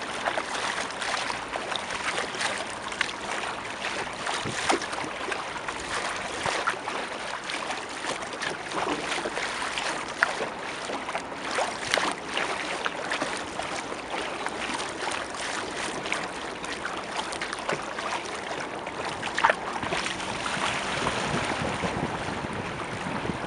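Water splashing and lapping against a kayak's hull as it moves, with wind on the microphone. A few sharper splashes or knocks stand out, the loudest about two-thirds of the way through.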